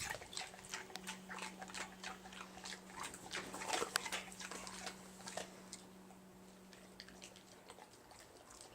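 Pit bull crunching ice cubes in its teeth: a rapid run of sharp crunches and clicks that thins out after about five seconds.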